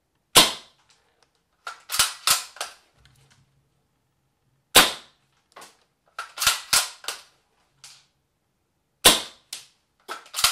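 S&T PGM Mini-Hecate .338 spring-powered bolt-action airsoft rifle fired three times into a chronograph, a sharp crack about every four and a half seconds. A quick run of softer clicks follows each shot, as the bolt is cycled for the next one.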